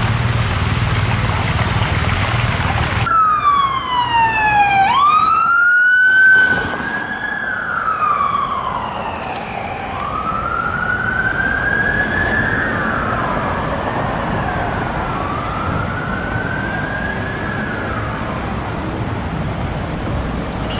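Norwegian police car siren wailing: it cuts in about three seconds in with a falling tone, then sweeps slowly up and down, one rise and fall about every five seconds. It is loudest around six seconds in and fainter after that. Before it there is a low steady vehicle rumble.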